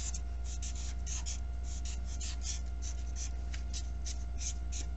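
Black felt-tip marker drawn over paper in short, quick strokes, a scratchy swipe about three times a second, as pattern lines are inked in. A steady low hum runs underneath.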